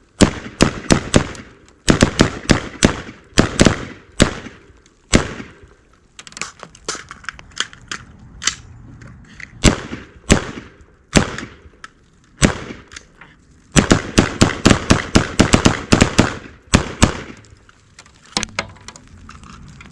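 AR-15 rifles firing semi-automatic, in quick strings of several shots a second broken by short pauses. The densest, fastest string comes about two-thirds of the way through, and the shots thin out toward the end.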